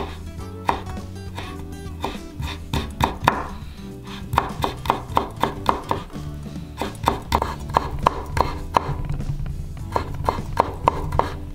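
Kitchen knife slicing yuzu peel into thin strips on a bamboo cutting board: several quick runs of crisp knocks of the blade on the board, about four a second, over soft background music.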